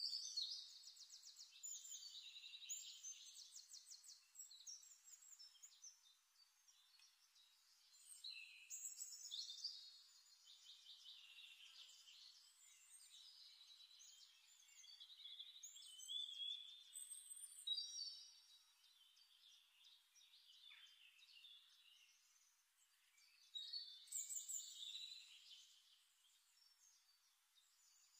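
Faint songbird singing: bursts of high, rapid trills and chirps that come back every several seconds.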